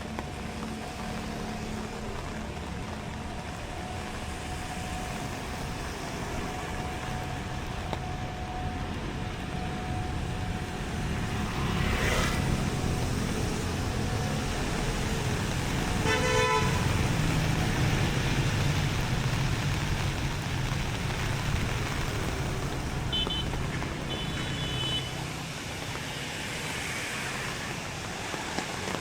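Road traffic running, louder through the middle as vehicles pass close by, with one short horn toot about sixteen seconds in and a few faint high beeps a little later.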